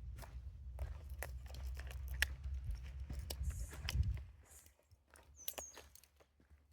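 Footsteps crunching on a walking trail over a low rumble, stopping about four seconds in; after that, a few faint clicks and one short high chirp.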